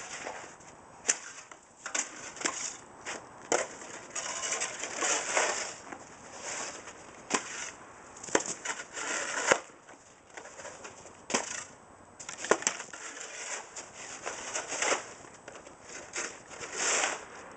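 Two shovels with spring-loaded skid plates scraping and crunching through packed, icy snow, with irregular sharp clacks and scrapes as the blades dig in and snow is flung.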